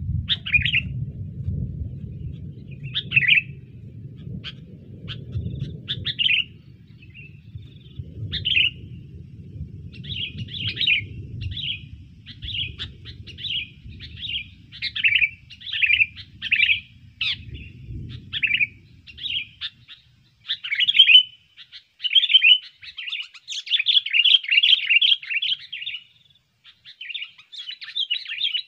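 A sooty-headed bulbul (kutilang) decoy bird calling over and over in short, chirpy phrases that come faster and more continuously in the second half. A low rumble lies underneath and fades out about two-thirds of the way through.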